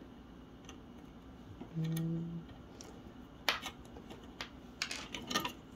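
Small hex key working screws out of a 3D-printed plastic bracket: a scatter of short, sharp metal clicks and ticks in the second half, a few of them louder. A brief low hum about two seconds in.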